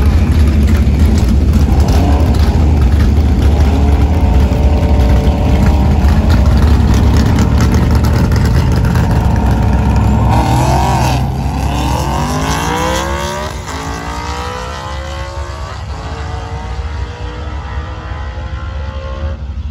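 Dodge Ram 2500 pickup and a motorcycle in an eighth-mile drag race. Engines rumble loudly at the starting line for about ten seconds, then a hard launch, with engine pitch climbing, dropping and climbing again through several gear changes as the sound fades down the track.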